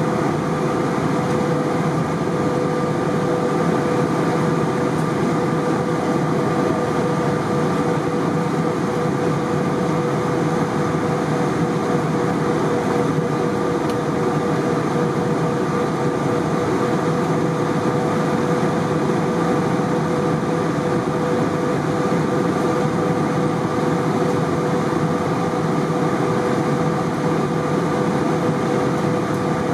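Steady cabin noise of an Airbus A320 in flight: a continuous rush of engines and airflow with a steady hum running through it.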